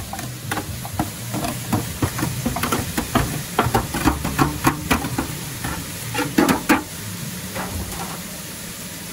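Diced bell peppers tipped from a tray into a large stainless stockpot of hot olive oil with onions and garlic: a run of irregular knocks and clatter from the tray and falling pieces, loudest about two thirds in, over the sizzle of frying. The knocks stop near the end, leaving the steady sizzle.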